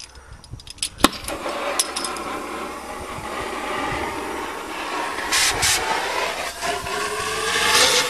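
Oxy-acetylene cutting torch lit with a sharp pop about a second in, then a steady hissing flame with a couple of louder hisses about five seconds in. Near the end the flame takes on a humming tone as it burns into the old rear axle bearing in the backhoe's axle housing bore.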